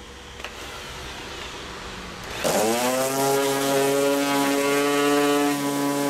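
Electric oscillating sander with a hook-and-loop pad switched on about two seconds in. Its motor whines up to speed and then runs steadily as it is pressed against the old coating on a fibreglass boat hull.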